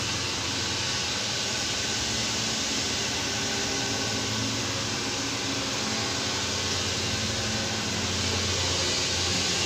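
Steady mechanical running noise: an even hiss with a steady hum beneath it, the hum growing a little stronger near the end.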